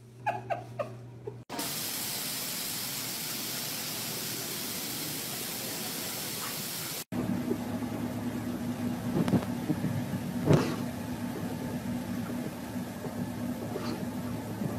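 A few brief clicks, then a steady hiss for about five seconds. After that, a car idling with a steady low hum, with a few knocks, the loudest about three-quarters of the way through.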